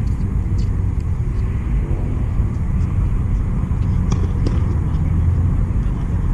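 Steady low outdoor rumble with a few faint, sharp ticks.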